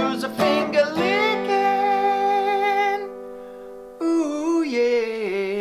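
Theme-song music: strummed acoustic guitar giving way about a second in to long held vocal notes, which fade, and then a new held note with a wavering pitch enters about four seconds in.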